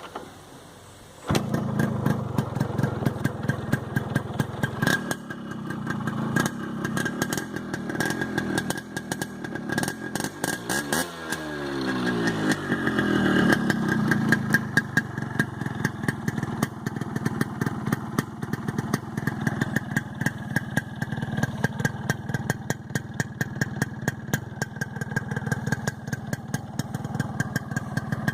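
Stock exhaust of a 1995 Yamaha RX100's single-cylinder two-stroke engine, starting up abruptly about a second in and running. About halfway through it is revved once, the pitch rising and then falling back to a steady idle with a regular crackling two-stroke beat.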